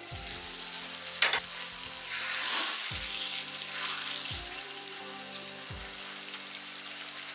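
Thick chicken masala gravy sizzling in a non-stick kadai while a spatula stirs it, with a sharp knock about a second in. Faint background music runs underneath.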